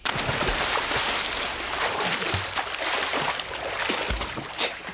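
A man plunging into a canal with a big splash, then thrashing about in the water. The splash starts suddenly and the churning water carries on, easing slightly toward the end.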